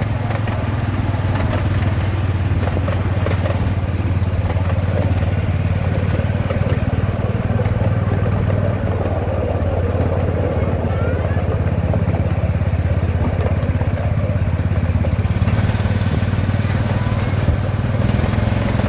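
Hymek-outline miniature railway locomotive's engine running steadily under power as the train travels, with a light clatter from the wheels on the track.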